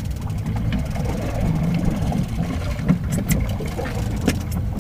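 Boat's outboard motor running steadily at low speed, a low rumble, with a few short clicks about three seconds in.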